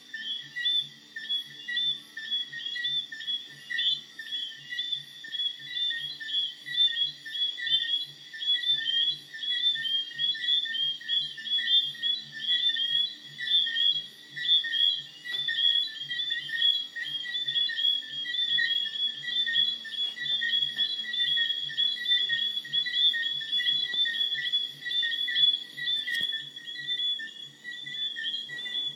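Loud, continuous chorus of alarm clock frogs, many short high chirping calls overlapping without pause. A band plays faintly underneath with a steady bass beat.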